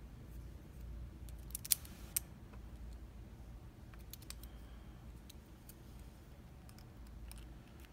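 Small metal clicks and light scraping of tools working on an American 1100 padlock while its core's circlip is pried off, with two sharper clicks a couple of seconds in.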